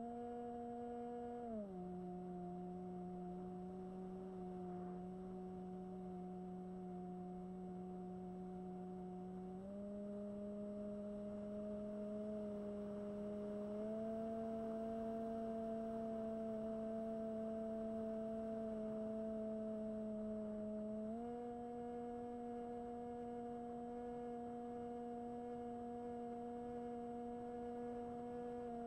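Electric motor and propeller of a Bixler 1 fixed-wing RC plane, a steady whine with a few overtones that changes pitch in steps with the throttle. It drops about a second and a half in, then climbs back up in three stages, around ten, fourteen and twenty-one seconds.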